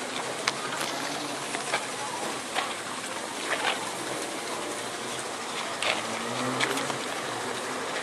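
Cattle snuffling and licking at a hand right by the microphone: a steady hiss with scattered short wet clicks.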